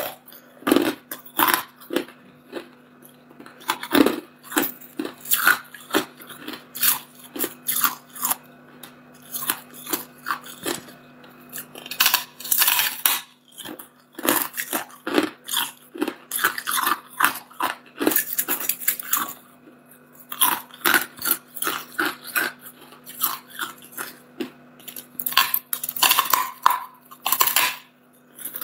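Teeth biting into and chewing a block of hard clear ice: irregular sharp cracks as pieces snap off, with runs of dense crunching as the fragments are chewed.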